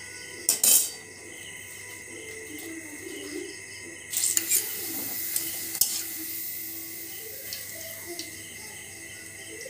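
A metal utensil clinks sharply against an aluminium wok about half a second in. About four seconds in, papad frying in hot oil starts to sizzle, sharply at first, then dies away over about two seconds.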